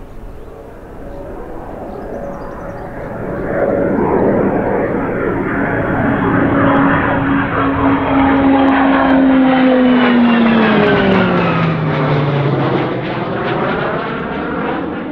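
Pilatus PC-21 single-engine turboprop (Pratt & Whitney Canada PT6A) making a fast low pass overhead. The engine and propeller drone grows loud about three and a half seconds in, then its pitch drops steeply as the aircraft passes about eleven seconds in.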